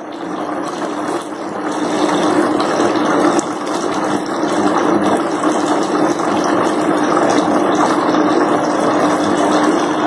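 Homemade four-stream tabletop waterfall fountain running: water splashes steadily down its rock tiers over the steady hum of its small electric pump, growing louder over the first two seconds and then holding.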